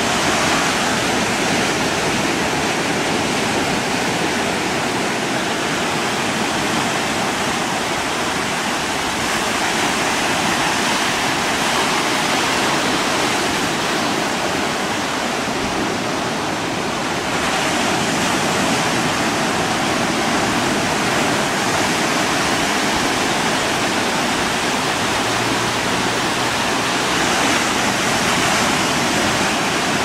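Ocean surf breaking, a steady, even rush of water with no single wave or bird call standing out.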